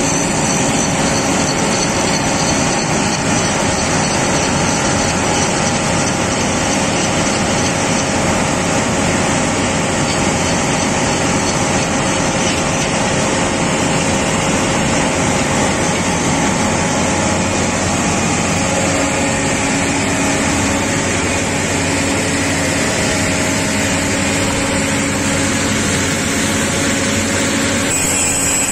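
Mobile rail flash-butt welding plant's power unit running steadily: a loud, even machine noise with a constant hum.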